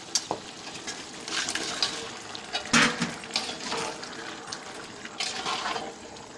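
Raw chicken pieces being dropped by hand into a pot of wet onion-tomato masala: irregular wet plops and squelches, the loudest about three seconds in.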